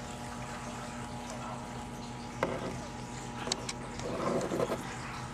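Newborn Maine Coon kittens suckling at their mother's teats: soft wet sucking and smacking, with a few louder smacks and a short scuffle past the middle as they jostle for a teat.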